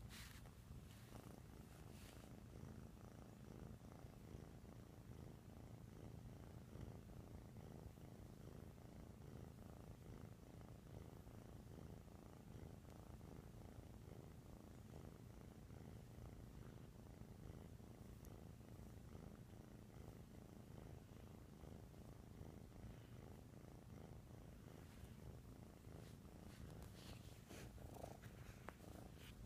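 Kitten purring steadily, a soft low rumble, with a few faint clicks near the start and near the end.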